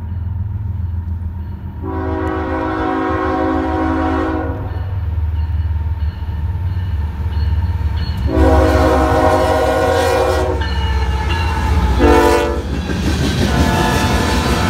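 Horn of a CSX freight train's diesel locomotive sounding the grade-crossing signal as it approaches and passes: two long blasts, a short one, then a final long one beginning near the end. Under it, the low rumble of the diesel engines grows louder as the train nears.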